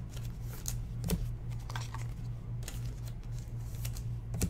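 Baseball trading cards being handled and slid against one another: scattered small clicks and rustles, with a sharper click about a second in and another near the end, over a steady low hum.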